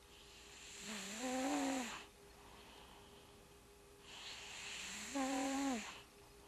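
Domestic cat snoring in its sleep: two long snoring breaths about four seconds apart, each ending in a drawn-out pitched drone.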